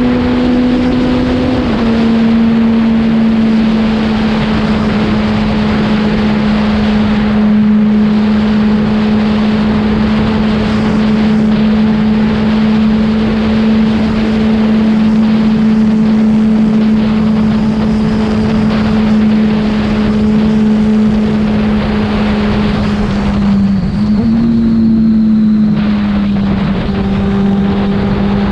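Yamaha FZ6 inline-four engine running through an aftermarket Leovince exhaust at a steady cruise, with wind noise on the microphone. The engine note holds steady, eases down slightly near the start, and near the end dips briefly and settles a little lower.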